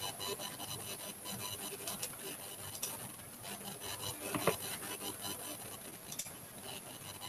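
Faint scratching and rubbing of a stylus on a graphics tablet, broken by a few soft clicks, with a sharper click about four and a half seconds in.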